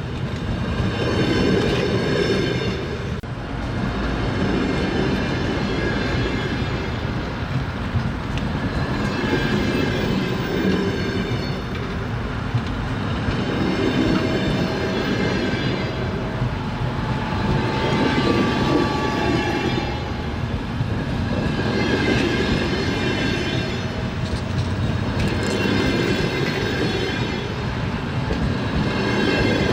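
Train wheels running on rails: a continuous rumble and clatter, with a high metallic squeal that swells and fades every few seconds.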